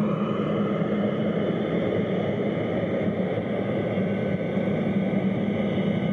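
Boeing 777's twin turbofan engines at taxi power: a steady jet rumble with a thin high whine over it.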